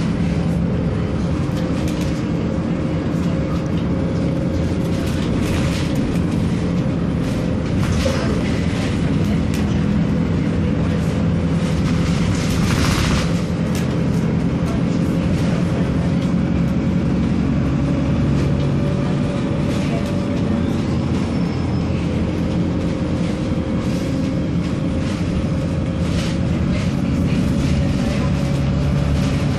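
Alexander Dennis Enviro300 single-deck bus under way, heard from inside the passenger saloon: a steady engine and drivetrain drone with a steady whine, frequent rattles and clicks, and a brief hiss about halfway through.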